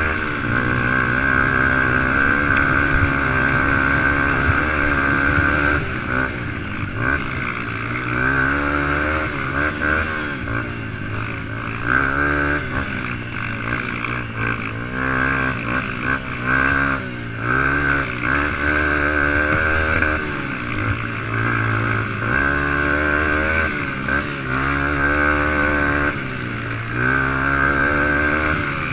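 125-class racing ATV engine heard from on board, its revs rising and falling over and over as the throttle is worked on rough off-road trail.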